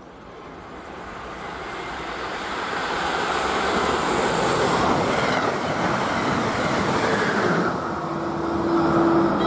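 Amtrak Keystone train, Metroliner cab car leading, passing at speed on the near track. The rush of wheels on rail and wind builds steadily and peaks as it goes by about four to five seconds in.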